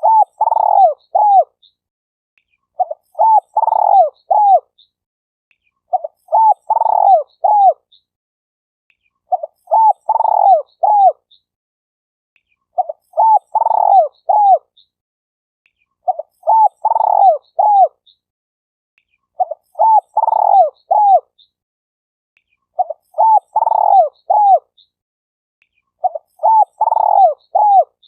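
Spotted dove (tekukur) cooing: the same short phrase of three or four soft coo notes, repeated about every three seconds with silence between, as a looped lure call for attracting doves.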